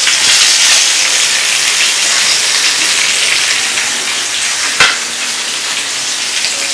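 Batter-coated quail deep-frying in hot oil: a steady, loud sizzle, with a single sharp knock about two-thirds of the way through.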